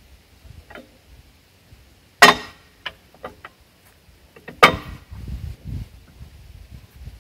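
Heavy half-inch steel backhoe thumb clanking as it is swung and pinned by hand. Two loud ringing metal clanks come about two and a half seconds apart, with lighter clicks of steel on steel in between.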